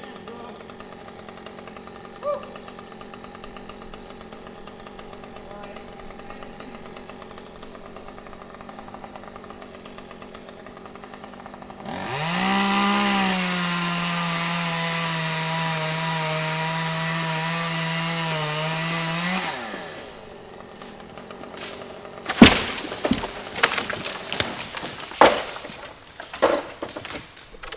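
Chainsaw idling, then revved to full throttle and cutting for about seven seconds, its pitch sagging slightly under load before it drops back and stops. A few seconds later comes a quick series of sharp loud cracks and knocks of wood breaking.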